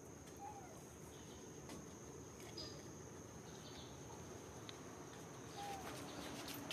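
Quiet outdoor ambience: a steady high-pitched insect drone, with two short chirps, one about half a second in and one near the end.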